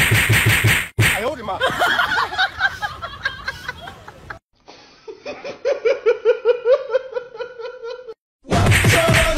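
An edited soundtrack: background music with a beat at first, a run of short repeated vocal pulses in the middle, then loud human laughter near the end.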